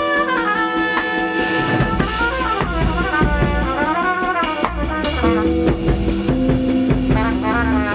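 Live jazz from a small band, with trumpet, electric guitar, bass and drum kit jamming in a 9/8 rhythm. Over a steady bass and regular drum strokes, the melody moves in wavy, sliding phrases.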